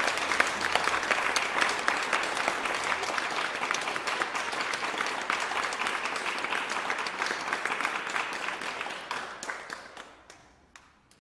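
Audience applause, dense clapping that fades out near the end, thinning to a few last claps.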